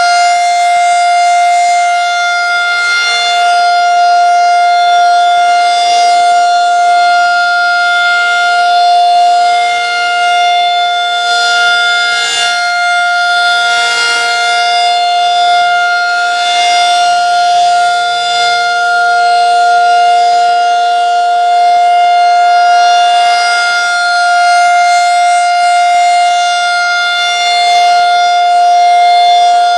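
Federal Signal 2001-SRN rotating tornado siren sounding a steady, single-pitch tone at full speed during a test. The tone swells and fades a little in loudness as the siren rotates.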